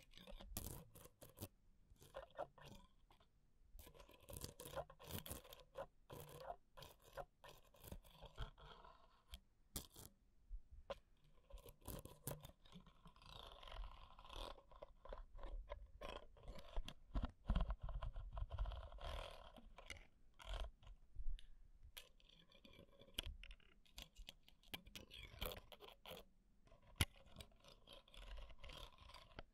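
Metal ear pick scraping, poking and tapping inside a microphone's cage close against the capsule: dense, irregular close-up scratches, crackles and clicks, with a low rumble of handling a little past the middle.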